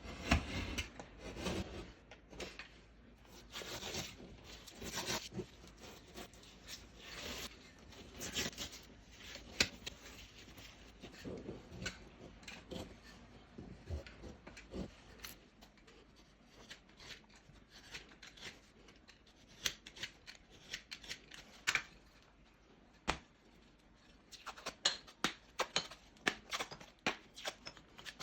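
Hand tools working on a drywall panel: irregular scraping, cutting and rubbing strokes, becoming sharper clicks and scrapes in the second half.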